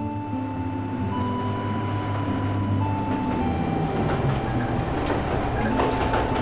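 Diesel railcar of the metre-gauge Chemins de Fer de Provence running along the track: a steady engine hum under wheel and rail noise that grows a little louder. A run of sharp clicks from the wheels comes near the end.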